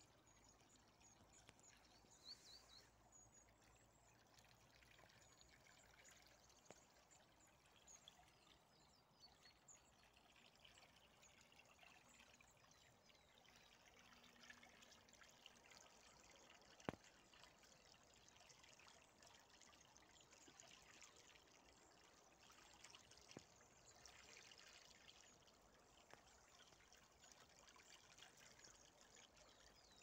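Faint trickling and burbling of a small river in spring flood, its water running through shrubs and around snow banks. A single sharp click comes about halfway through.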